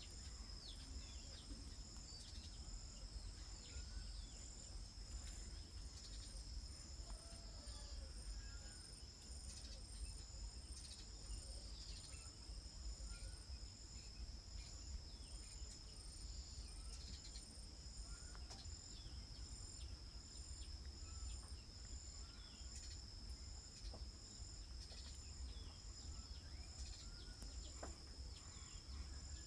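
Faint outdoor insect chorus, cricket-like: a continuous high-pitched trill with higher, regularly pulsing chirps over it. Short bird chirps come and go, over a low rumble.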